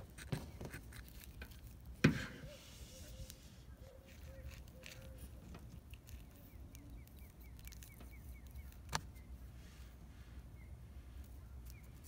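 Close handling noise as bait is worked onto a small jig hook: a sharp knock about two seconds in and a lighter click near nine seconds, over a faint low rumble. A faint quick run of high chirps comes around seven seconds in.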